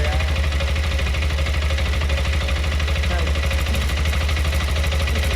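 TVS Apache RTX 300's single-cylinder engine idling steadily, with an abnormal metallic clicking over the idle. The owner suspects a tappet or cam-chain tensioner noise.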